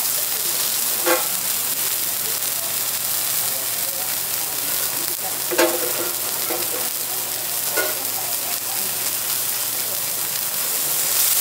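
Beef loin sizzling steadily on a hot steel teppanyaki griddle, with three short knocks about a second in, midway and near eight seconds.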